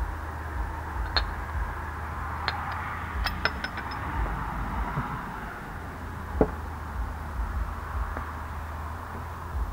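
A forged steel bottle opener clinking against a glass bottle and its cap: a few light, ringing clinks in the first four seconds, then a single duller knock about six and a half seconds in.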